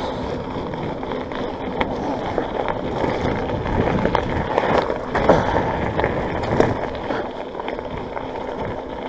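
Mountain bike (On One Parkwood) rolling along a waterlogged trail: a steady rush of tyre and water noise, with scattered knocks and rattles from the bike over the rough ground.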